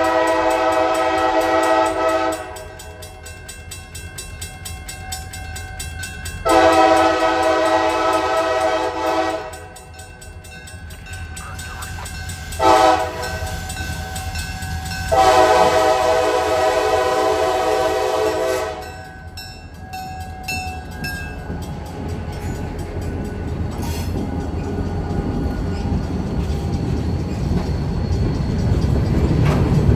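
Wheeling & Lake Erie diesel freight locomotive blowing its multi-tone horn for a grade crossing in the standard long, long, short, long pattern, each long blast about three seconds. After the last blast the train comes through the crossing, and the rumble of the locomotive engine and wheels on the rails grows steadily louder near the end.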